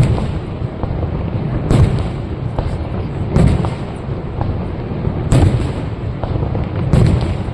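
Aerial fireworks shells bursting: five loud bangs spaced about one and a half to two seconds apart, with fainter pops in between, over a steady low rumble.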